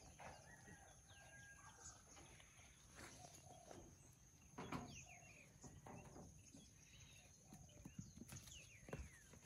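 Near silence with faint farm-animal calls and a few light knocks; the most noticeable is a short animal call about five seconds in.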